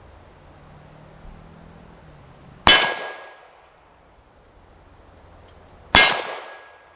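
Two 9 mm Parabellum shots from an Arsenal Firearms Strike One pistol, a little over three seconds apart, each hitting a thin sheet-steel gong that clangs and rings briefly.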